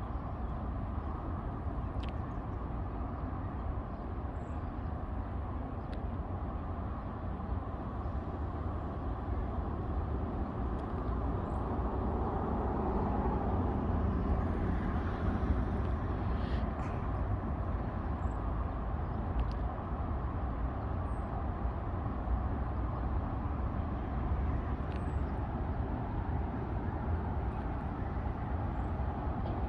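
Geothermal hot pool bubbling and boiling, a steady low rumbling wash of sound, with a few faint pops along the way.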